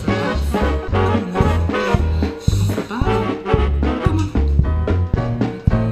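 Upbeat swing-style background music with brass and a steady bouncing bass beat.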